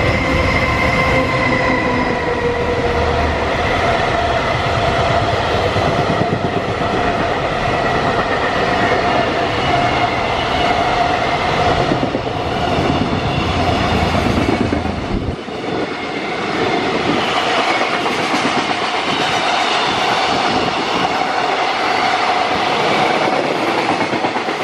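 JR Freight EF210 electric locomotive passing at speed, followed by a long string of container flat wagons rolling by, their wheels clattering on the rails under a steady high whine. A little past halfway the deep rumble suddenly drops away, leaving the higher rolling noise.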